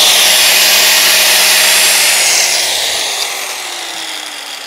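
Corded angle grinder running free at full speed, then switched off about two and a half seconds in and spinning down, its whine falling in pitch.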